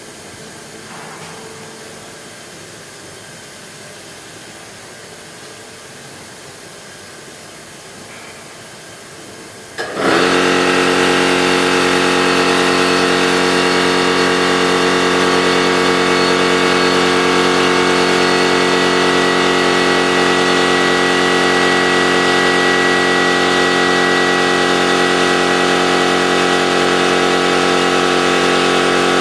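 A faint steady hiss, fitting the gas torch flame, then about ten seconds in a loud, steady machine hum with a strong fixed-pitch drone cuts in abruptly and keeps running evenly.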